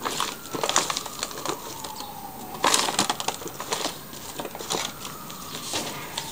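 Hands tossing oiled, spiced potato and sweet-potato slices in a disposable aluminium foil pan: an irregular run of foil crinkles and wet slaps of the slices, busiest about three seconds in. A faint, slowly wavering tone runs underneath.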